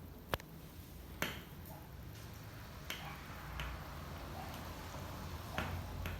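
Venti-Delta ceiling fan running with a steady low hum, with a few sharp, irregularly spaced clicks over it.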